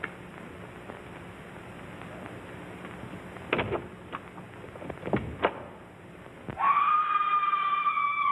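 A few sharp bangs about three and a half and five seconds in. Near the end a siren starts, winding up and then holding one steady wail.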